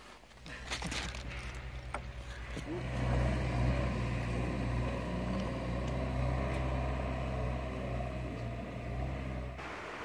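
An engine running steadily, growing louder about three seconds in and cutting off just before the end, with a few sharp knocks in the first three seconds.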